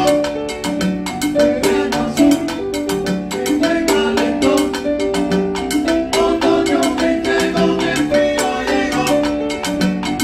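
Live Latin band playing a salsa tune: short repeated piano figures over regularly struck hand drums, at a steady beat.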